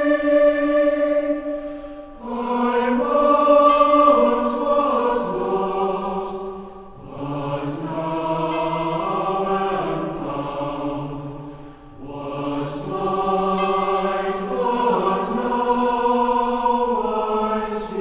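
Choir singing slow chords in phrases of about five seconds, the loudness dipping briefly between phrases.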